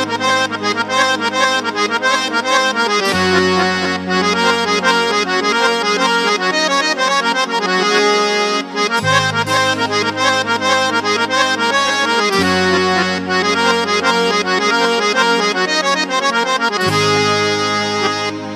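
Casio CT-X9000IN keyboard playing a harmonium tone: a quick run of melody notes over held low notes that change every few seconds.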